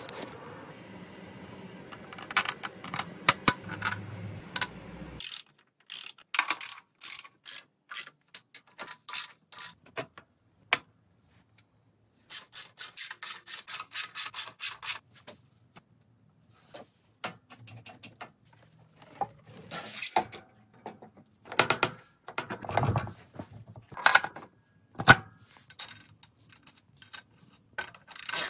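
Hand tools and metal motorcycle parts clicking and knocking as they are fitted together, with a low steady hum under the clicks that stops about five seconds in. A run of rapid, even clicks comes about twelve seconds in.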